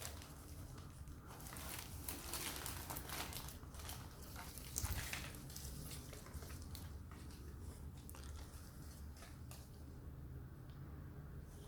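Packaging rustling and crinkling as it is handled, in an irregular run of small crackles, with one soft thump about five seconds in.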